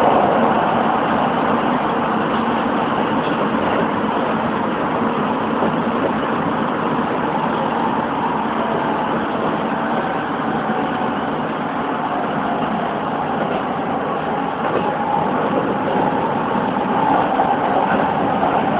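Keisei 3700 series electric commuter train running at speed, heard from inside the driver's cab: a steady rumble of wheels on the rails, swelling slightly near the end.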